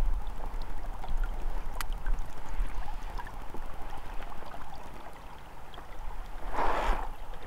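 River water trickling and gurgling around a drifting raft, over a steady low rumble, with a few faint clicks and a brief louder rush of noise about six and a half seconds in.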